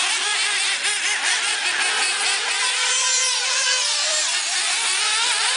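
Several 1/8-scale nitro RC buggies racing, their small glow engines revving up and down at once in overlapping high-pitched tones.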